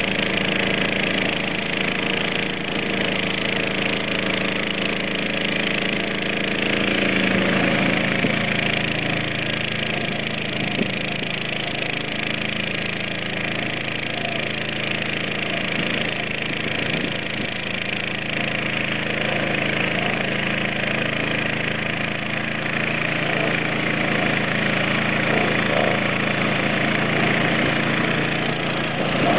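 Engine of a walk-behind mower running steadily while it cuts grass, with a slight change in its note about seven seconds in.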